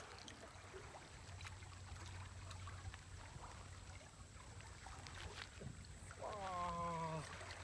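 Low steady outdoor rumble with faint scattered ticks; about six seconds in, a drawn-out voice lasting about a second, falling slightly in pitch.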